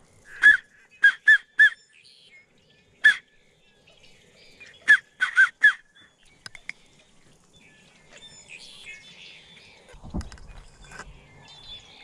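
Short, sharp whistled duck calls, close and loud, in quick runs: one, then three, then a single, then four notes in the first six seconds. Fainter bird chatter follows near the end.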